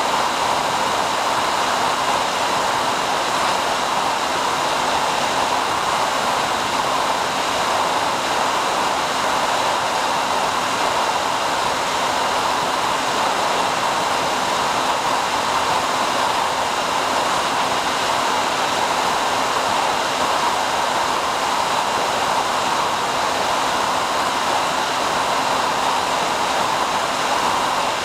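Steady rushing noise with faint, steady whining tones above it, unchanged throughout, on the audio feed recorded with an FPV plane's DVR footage.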